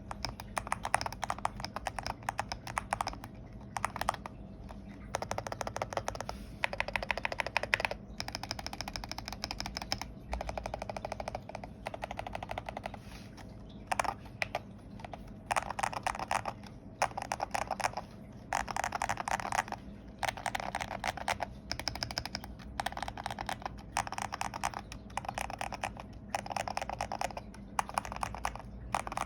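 Typing on a Melgeek Made 68 Ultra mechanical keyboard with ceramic keycaps, TTC KOM 70 g springs, a POM plate, polyfill and three layers of tape: fast runs of keystrokes with short pauses between them.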